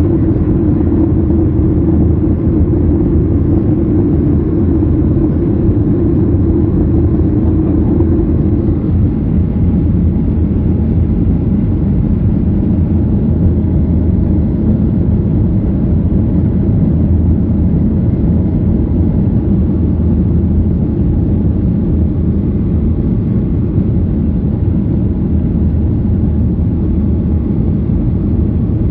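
Steady jet engine and airflow noise heard inside a jet airliner's cabin while it climbs after takeoff, a deep even drone. A humming tone within it fades out about nine seconds in.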